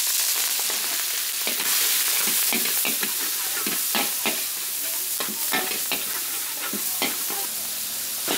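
Greens and minced meat sizzling in a hot steel wok as they are stir-fried, the metal ladle and spatula scraping and clanking against the pan again and again over the steady frying hiss.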